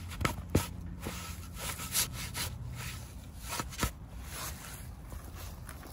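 Shovel blade stabbing and cutting into grassy turf and its roots: a series of sharp crunching chops with scraping and tearing between them, the strongest about half a second in.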